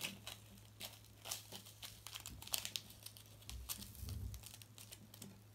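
A small plastic sachet crinkling and rustling in short, irregular crackles as it is handled and tipped to pour bouncy-ball crystals into a ball mould.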